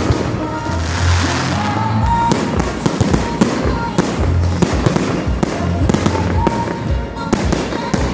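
Aerial fireworks bursting in rapid succession, with many sharp bangs and crackles, over loud music with a repeating bass line.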